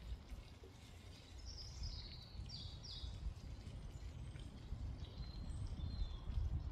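Wild birds chirping: a quick run of short, falling calls a couple of seconds in and fainter calls later, over a steady low rumble.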